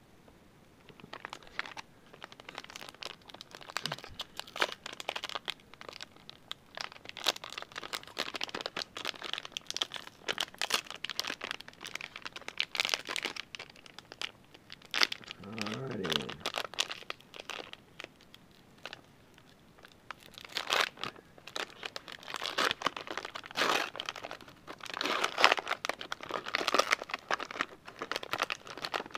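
Foil trading-card pack wrapper crinkling and tearing as it is handled and ripped open, in a long run of rustles and crackles that stops and starts.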